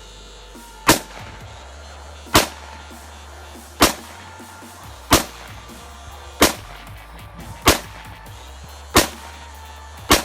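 Eight rifle shots, evenly spaced about one every 1.3 seconds, over background music with a low steady drone.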